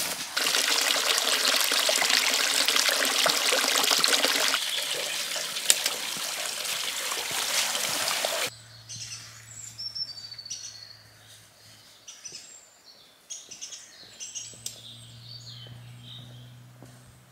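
Spring water pouring from a pipe into a concrete trough, a steady splashing rush that cuts off abruptly about eight and a half seconds in. After that, small birds chirp over a low steady hum.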